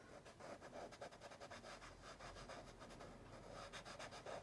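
Small piece of compressed charcoal rubbed and scratched onto drawing paper, a faint rapid scratching as dark tone is laid in.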